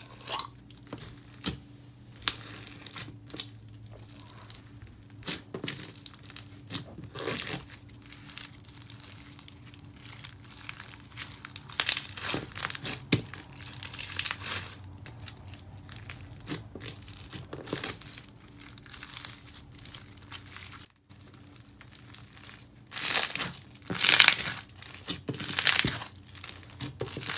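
Clear-base slushy slime packed with small beads being squeezed, poked and pressed by hand, giving irregular crunchy crackling. The crackles are loudest near the end.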